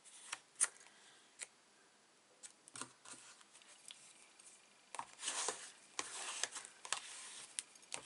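Card stock being handled and pressed down onto a card panel: a few light taps and clicks, then a scratchy paper rustle about five seconds in, with more ticks after it.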